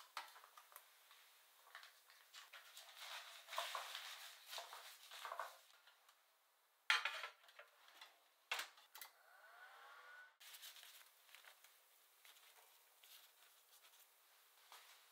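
Quiet kitchen handling sounds: light rustling and small knocks at the sink, then a sharp clack about halfway through and another a moment later as a Hitachi oven-microwave's door is worked. Near the end there is soft rubbing of paper towel against a stainless mesh strainer.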